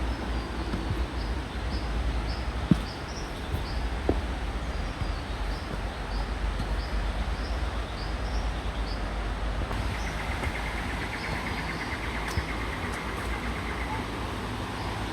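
Steady rushing of a rainforest creek, with high, short bird chirps repeating about twice a second for most of the time, then a buzzing trill for a few seconds near the end. A couple of sharp knocks sound early on.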